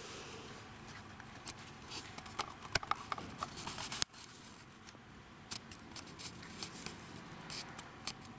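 Handling noise from a handheld camcorder being moved: a run of small scratchy clicks and rustles, thickest between about two and four seconds in, with a sharp click about four seconds in.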